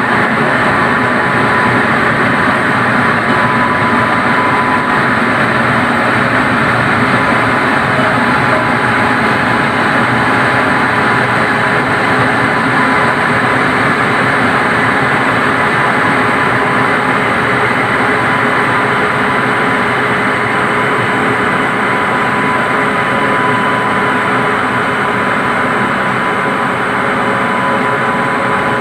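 Two trains running side by side at speed, heard from the open door of a moving coach: a steady rush of wheels on rail and wind, with an electric locomotive and its coaches passing on the adjacent track.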